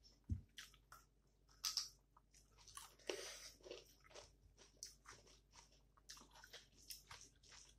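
Person chewing a mouthful of rice, greens and potato curry eaten by hand: faint, irregular soft clicks and short bursts, with a brief low thump just after the start.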